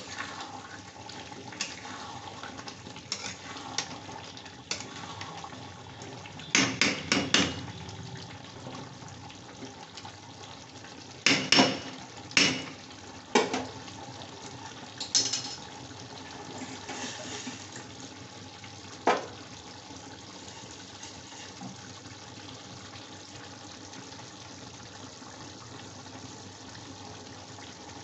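Chicken curry gravy boiling in a steel kadai, a steady bubbling, with sharp metal clanks of a utensil against the pan: a quick run of four about seven seconds in, a few more between eleven and fifteen seconds, one last near nineteen seconds, then only the boiling.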